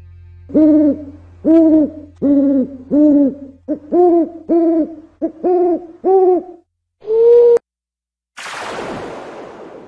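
An owl hooting: a series of about eight short, arching hoots a little under a second apart, then one longer, higher hoot. After a short pause, a falling rush of noise comes near the end.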